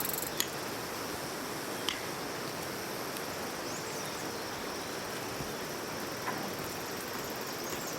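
Steady outdoor field hiss with a few faint clicks and, twice, a faint high chirp.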